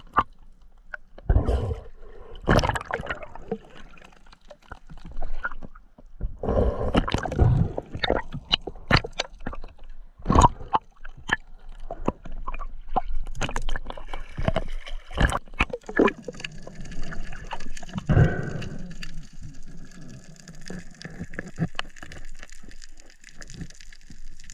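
Sea water sloshing and gurgling around a camera at the water surface, with many irregular splashes and knocks. About two thirds of the way through it settles into a steadier faint hiss.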